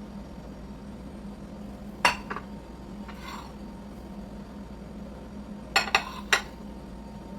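Kitchen utensils and dishes clinking: a sharp clink about two seconds in, a brief scrape a second later, then three quick clinks near the end, over a steady low hum.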